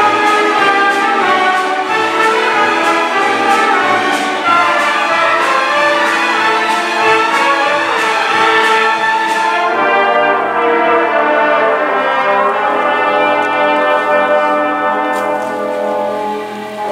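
Full school symphony orchestra playing, with the brass prominent over strings and a steady beat of percussion strikes. About ten seconds in the texture thins to a softer, more sustained passage.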